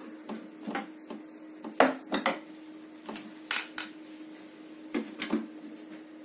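Irregular clicks and knocks of a screwdriver and loosened screws against a water purifier's plastic housing while its casing is being unscrewed, over a faint steady hum.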